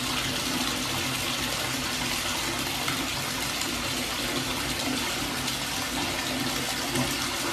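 Steady rushing noise like running water, with a faint steady low hum underneath.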